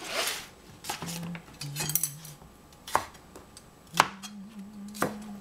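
Kitchen knife cutting a peeled cucumber on a plastic cutting board: several sharp knocks of the blade striking the board, about a second apart, after a brief rustle at the start.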